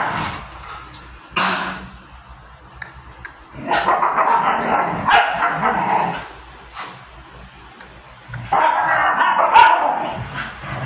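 A Siberian husky and a small dog play-fighting, with barks and rough play vocalizations in bursts: a short one about a second and a half in, then longer stretches from about four to six and a half seconds and from eight and a half to ten and a half seconds.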